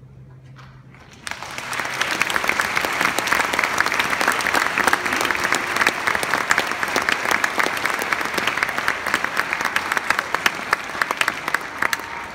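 A school concert band's last low note fades away, and about a second in a full audience starts applauding, a dense, steady clapping that thins out near the end.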